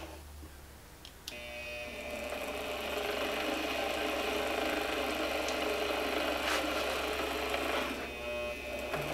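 Motor of an AOCKE AX16RE magnetic drill press. A click of the direction selector switch comes at the start and the motor drops away. After another click about a second in, the motor spins back up over a second or two (its soft start) and runs steadily. Near the end it dips briefly under load as the spinning chuck is gripped by hand to test its torque.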